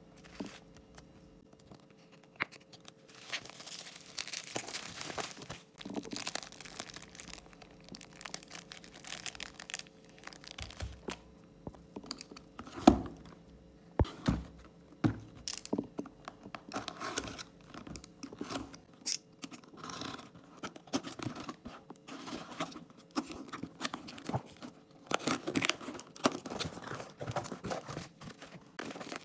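Card packs being torn open by hand, their wrappers rustling and crinkling in irregular bursts, with a couple of sharp knocks about halfway through.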